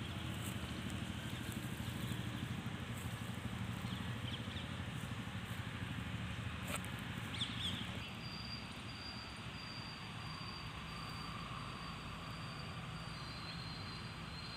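Outdoor ambience picked up by a phone microphone: a steady low rumble and hiss, with a few brief faint chirps. About eight seconds in the sound drops a little and a thin, steady high-pitched tone comes in.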